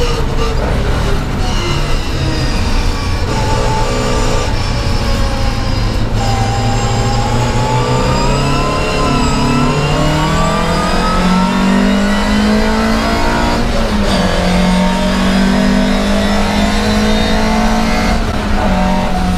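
Volvo 544 Sport racing car's four-cylinder engine heard from inside the cabin, running at racing revs under load. The pitch holds, then climbs steadily for several seconds, with brief lifts and drops in pitch a few times at gear changes.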